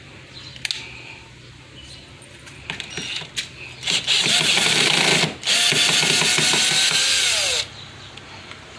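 Power drill driving a screw into door lock hardware in two runs of about a second and a half and two seconds, the motor's whine falling away as the trigger is released at the end. A few light clicks of hardware being handled come before.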